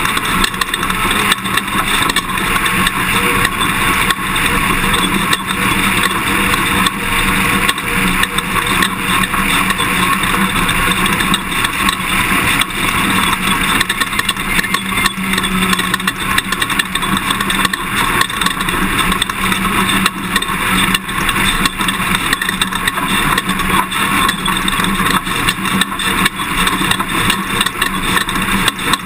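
Toyota Tundra pickup driving off-road. The engine runs steadily under a constant clatter of short rattles and knocks from the rough ride.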